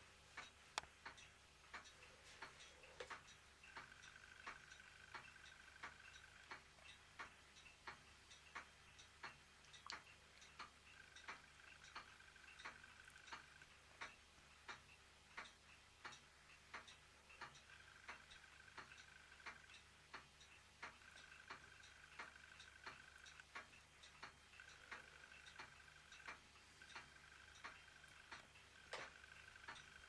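Faint, steady mechanical ticking, about two ticks a second, with an even rhythm.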